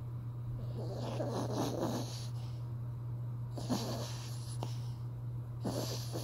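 A sleeping pet snoring: three noisy breaths, the first long and rasping, the next two shorter with a snort-like catch.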